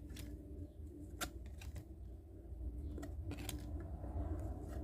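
Trading cards being slid and flipped one by one in the hands, giving a few light, sharp clicks and soft rustles over a low steady hum.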